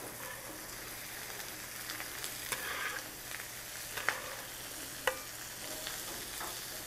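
Sliced sausage, onions and red bell peppers sizzling in oil on a hot Cuisinart flat-top griddle as they are pushed off a wooden cutting board. Several sharp clicks of a metal utensil striking the board or griddle come through the steady sizzle.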